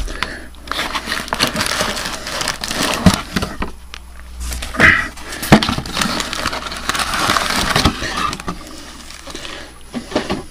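Cardboard trading card box and a stack of card packs being handled: rustling and crinkling with scattered knocks and clicks, and a few louder thumps.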